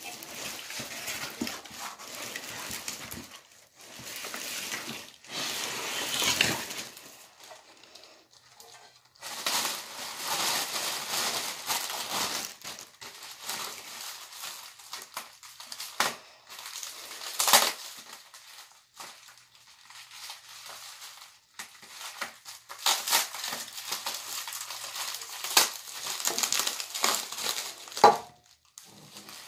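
Plastic packaging crinkling and rustling in irregular bursts as it is handled and pulled out of a cardboard box, with a few sharper snaps or knocks.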